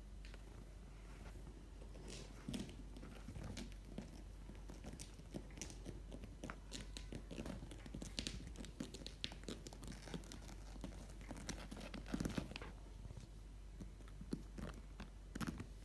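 Kittens' claws scratching and scrabbling at quilted mattress fabric as they climb and play on it, in irregular soft rustles and ticks, the loudest scrabble about twelve seconds in.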